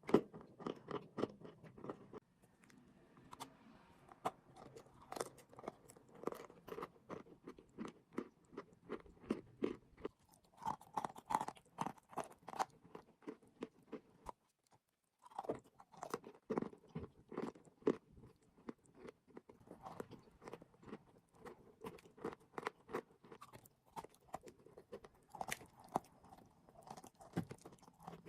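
Close-miked crunching and chewing of chalk and clay, a dense run of sharp crackles with a short pause about halfway through.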